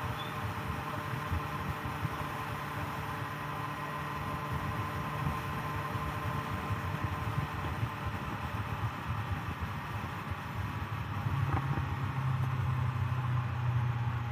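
Motorcycle engine running steadily under wind noise while riding, the engine note growing louder about eleven seconds in.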